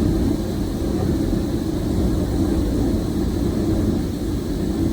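Steady low rumble of running machinery, even in level throughout.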